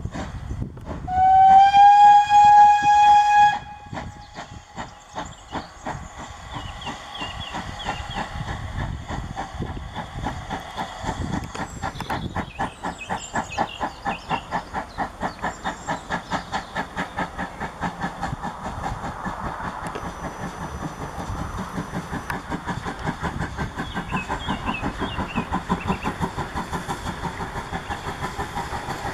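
GWR 28xx class 2-8-0 steam locomotive No. 2807 gives one long whistle blast of about two and a half seconds, then its exhaust beats steadily at about three a second as it works a passenger train past, getting slightly louder near the end.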